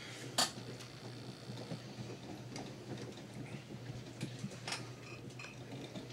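Running ceiling fan with a steady low hum, and scattered light clicks and ticks at irregular intervals, the sharpest about half a second in.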